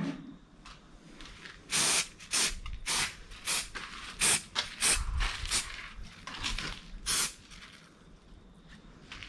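Aerosol can of CRC rust converter sprayed in a quick series of short hissing bursts, about a dozen over some five seconds, onto bare, surface-rusted steel.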